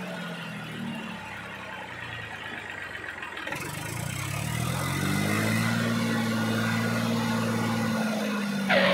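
Motor of a DIY mini tractor running with a low, steady hum; its pitch sags then climbs back about four seconds in, after which it runs louder and steady.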